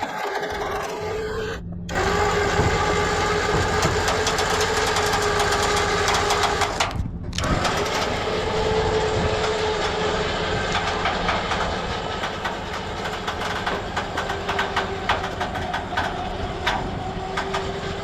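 Dumpster truck's engine running with a steady whining tone over a low rumble, broken off briefly twice; scattered clicks and knocks in the second half.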